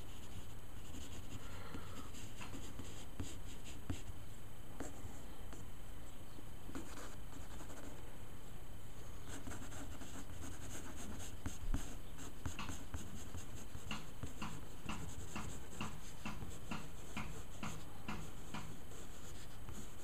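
Wooden pencil sketching on paper: short scratchy strokes, sparse at first and then coming in quick runs of several a second through the second half, with one small knock near the middle.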